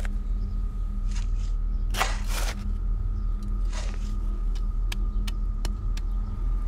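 Shovel digging into garden soil: several short scrapes and scoops in the first few seconds, the strongest about two seconds in, then a few light sharp clicks. A steady low rumbling drone runs underneath throughout.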